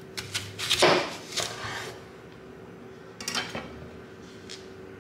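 Kitchen knife cutting through a dragon fruit's skin and flesh against a wooden cutting board, a crunching slice that peaks about a second in. A shorter burst of knocking and rustling follows a little past three seconds in, over a faint steady hum.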